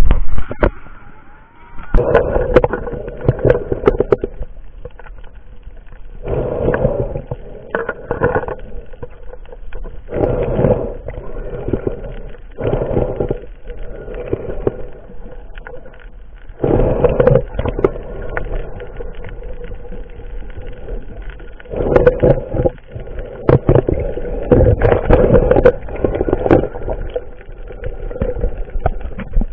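Muffled water noise and knocks heard through an action camera's waterproof housing underwater. The noise rises and falls in surges every few seconds.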